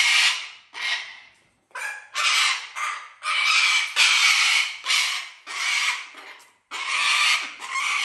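A parrot screeching over and over: about a dozen loud, harsh calls, each under a second long.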